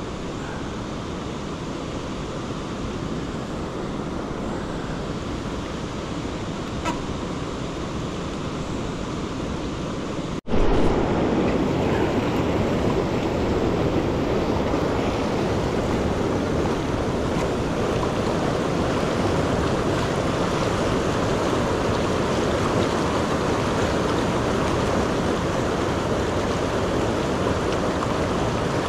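River current rushing, a steady noisy rush of water. About ten seconds in it cuts out for an instant and comes back louder and fuller.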